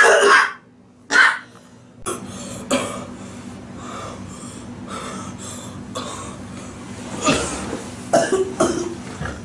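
A man coughing hard in repeated fits: two loud coughs in the first second and a half, then a run of quieter coughs, with louder ones again near the end.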